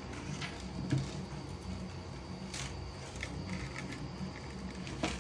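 Plastic extruder gears in a Voron 3D printer toolhead turning, checked for binding: a faint, uneven low whirr with a few light clicks, the sharpest near the end.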